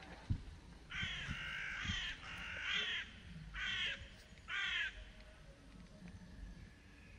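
A crow cawing, a run of about five harsh calls between about one and five seconds in. A single sharp knock comes just before the calls.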